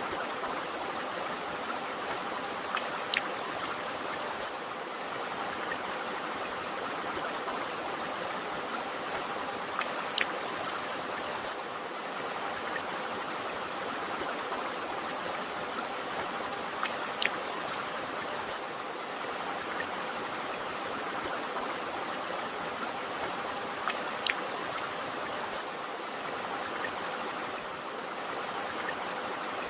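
River water flowing steadily, a continuous rushing with no change in level. Four brief sharp plinks stand out over it, about seven seconds apart.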